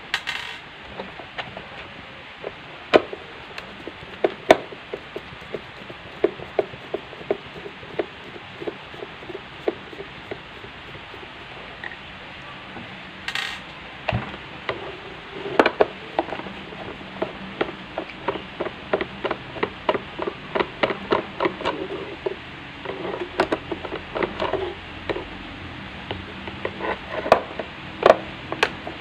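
Screwdriver turning screws out of a Philips blender's plastic base: long runs of small quick clicks, with a few sharper knocks as the plastic housing is handled.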